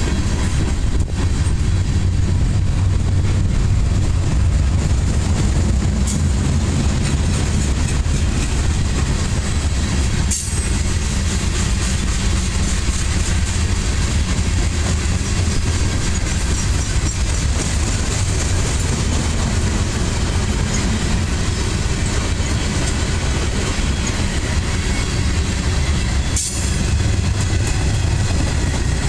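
Mixed freight cars of a passing train (boxcars, covered hoppers and tank cars) rolling by close at hand: a loud, steady rumble of steel wheels on the rails.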